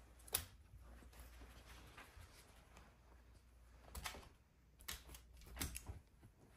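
A few sharp clicks and scuffs of a small dog's claws and paws as it moves about and scrambles up onto a bed, over a low room hum; a single click comes near the start and a cluster of them comes about four to six seconds in.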